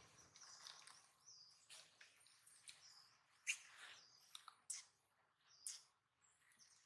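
Faint, high-pitched chirps and squeaks, repeated irregularly, with a few soft clicks among them.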